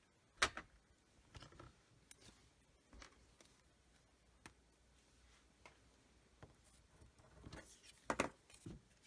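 Light taps and clicks of paper pieces and craft supplies being handled on a tabletop. There is one sharp click about half a second in and a small cluster of taps near the end.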